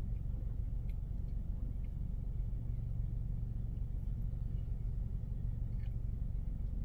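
Steady low hum of an idling Kia car, heard from inside its cabin, with a few faint sips and swallows from a plastic soda bottle.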